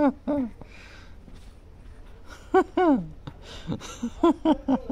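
A woman's high-pitched, sing-song baby talk in short bursts of syllables: a few at the start, again about two and a half seconds in, and a quick run near the end.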